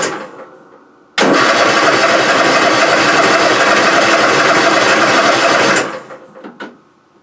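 Electric starter cranking the Kohler 23 hp V-twin engine of an MTD Gold lawn tractor, with the choke on. A first crank cuts off just as the sound opens, and a second crank starts about a second in and runs for about four and a half seconds before stopping. The engine turns over without catching: it is a no-start, which the owner goes on to trace to fuel not getting through the fuel filter, though he says he is not entirely sure yet.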